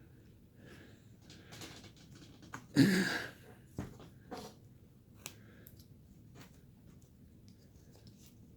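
Short, soft scraping strokes of hand carving on basswood, with one louder, noisier sound about three seconds in.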